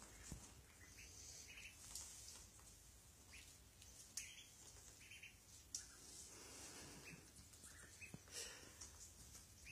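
Ducklings peeping faintly, a scattering of short, high chirps, with a few faint clicks among them.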